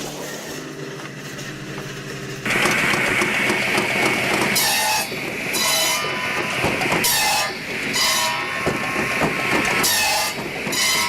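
A wood-processing machine working. An engine runs steadily, then about two and a half seconds in a loud cutting or grinding noise starts. Short, sharp hissing bursts come through it about five times.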